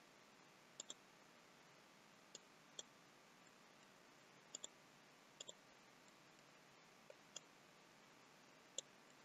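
Computer mouse clicking about eleven times, sharp and faint, several in quick pairs like double-clicks, over a low steady hiss.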